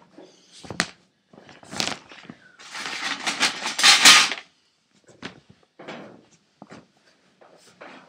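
Hand-work noises: scraping, rustling and knocking in the empty heater cavity, loudest in a long rough scrape about three to four seconds in.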